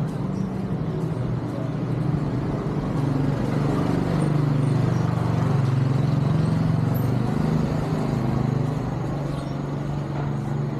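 A motor vehicle's engine running steadily, with a low hum that grows louder through the middle and eases off near the end.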